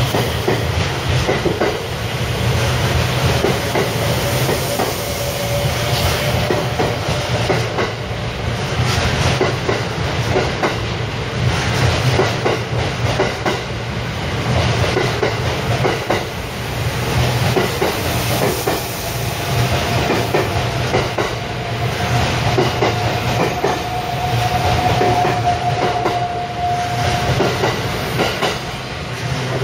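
285-series sleeper electric train pulling out and running past at close range, its wheels clattering steadily over the rail joints. A faint whine holds through the second half.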